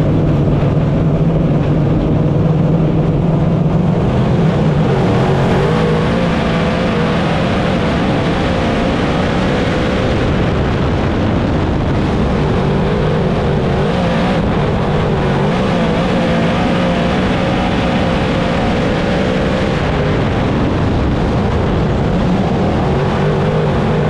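Dirt modified race car's V8 engine heard from inside the cockpit on track, running loud at a fairly steady pitch.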